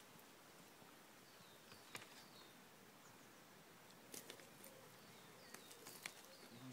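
Quiet outdoor ambience with a small bird giving short, high, falling chirps several times, and a few light sharp clicks near the end.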